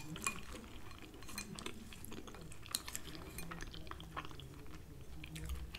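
Metal spoon clinking and scraping quietly in a glass bowl of peas, with soft chewing and small mouth clicks.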